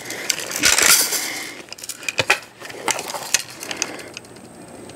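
Steel BBs rattling and clinking inside a Daisy Red Ryder BB gun as it is shaken, heard as irregular metallic clicks with the loudest rattle about a second in. The gun is failing to feed BBs.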